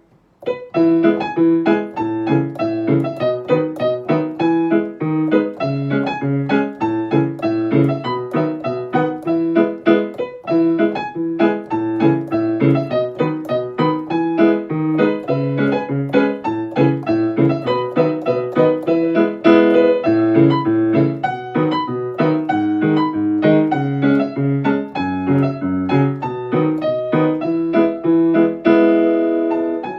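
Background piano music: a steady stream of notes at an even pace, starting about half a second in.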